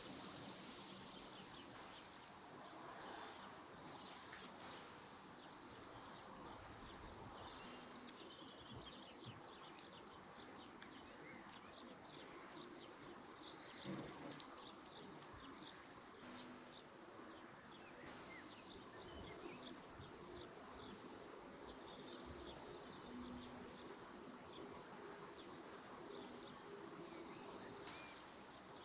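Quiet outdoor ambience with faint, scattered small-bird chirps and a soft knock about halfway.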